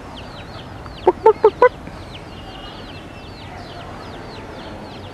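Feral chicken clucking four times in quick succession about a second in, over a continuous run of small, high, repeated chirps.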